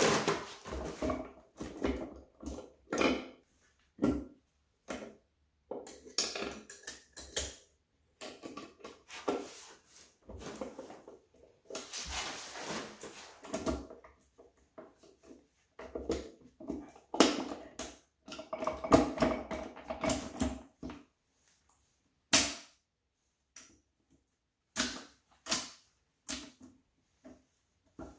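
Irregular metallic clinks and knocks as a Honda YS1 B-series transmission's gear shafts and shift forks are handled and fitted into the aluminium case, some with a short ring, with quiet gaps in between.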